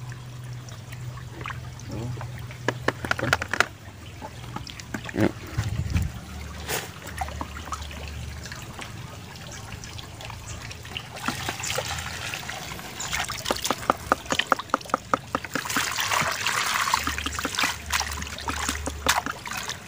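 Water trickling and splashing as a perforated plastic colander is dipped, tilted and lifted in a basin of water, with many small sharp splashes that are busiest about two-thirds of the way through.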